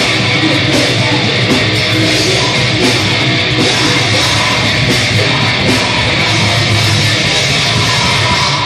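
Heavy metal band playing live, with electric guitars, bass guitar and drums.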